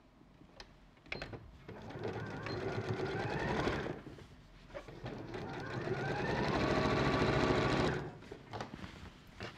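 Sewing machine stitching a seam in two runs: a short burst that speeds up, a pause, then a longer run that speeds up, holds and stops about eight seconds in. A few light clicks of handling come before and after the runs.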